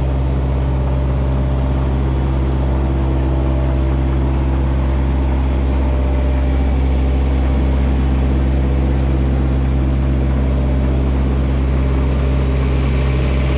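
A steady, unchanging low engine drone.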